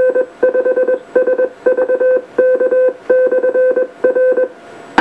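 A UHF repeater's automatic Morse code identification, heard through the speaker of an Icom IC-706MKIIG transceiver. A single mid-pitched beep is keyed on and off in quick dots and dashes, in several groups lasting about four and a half seconds, followed by a click near the end.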